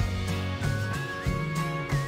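Background music with a steady beat: held bass notes under a melody line that steps up and down in pitch.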